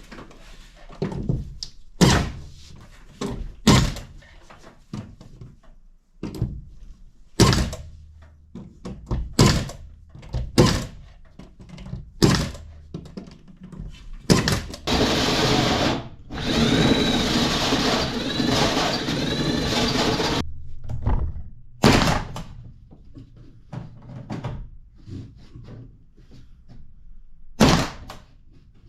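Renovation work: a string of irregular knocks and thunks, with a power tool running for about six seconds midway, briefly stopping partway through.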